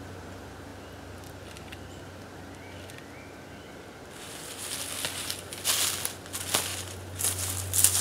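Footsteps crunching through deep, dry fallen leaves: an irregular run of crackling steps that starts about halfway through and grows louder.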